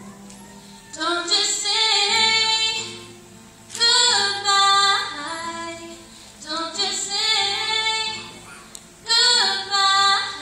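A girl singing a pop ballad solo in four loud phrases, her voice carrying over her own acoustic guitar, which is only faint underneath.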